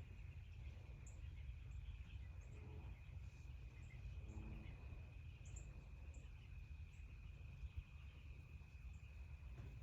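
Quiet woodland ambience: a steady high-pitched insect drone, scattered faint high chirps, and a constant low rumble.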